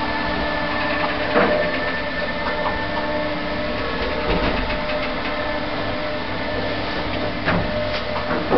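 Original single-speed 1970s Wadsworth lift running: a steady motor hum and whine, with about four clicks and clunks as the car travels.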